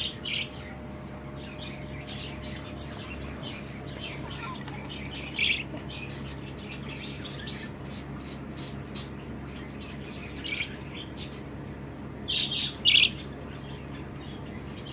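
Budgerigars chirping: a run of short, high chirps and chatter throughout, with louder calls about five seconds in, near ten seconds, and a cluster near the end, over a steady low hum.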